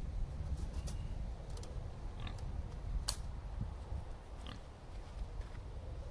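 Domestic pigs giving a few short calls, with several sharp clicks over a steady low rumble.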